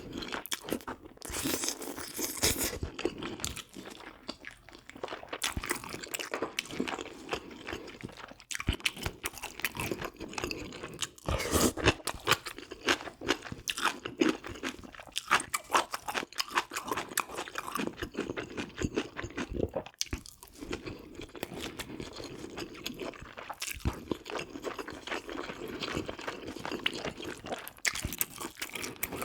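Close-miked chewing and biting of spicy braised pork ribs with bean sprouts: a dense, irregular run of crunching and crackling mouth sounds.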